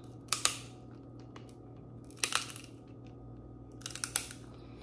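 Close-miked eating sounds of snow crab leg meat being bitten and chewed: sharp, wet, crackly mouth sounds in three short clusters, about half a second in, a little past two seconds, and around four seconds.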